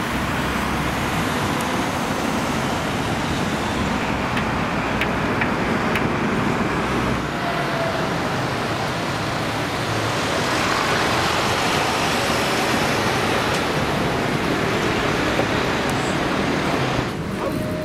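Steady rushing running noise of an open-topped heritage tram in motion, heard from its open deck, with wind on the microphone.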